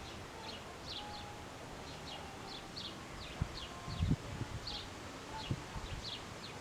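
Small birds chirping over and over in short, high, downward-sliding chirps, a few a second, over a faint outdoor wind hiss. A couple of brief low wind thumps on the microphone come about four seconds in.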